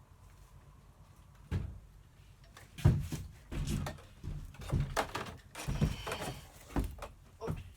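A series of about ten irregular knocks and thumps, starting about a second and a half in, the loudest about three seconds in.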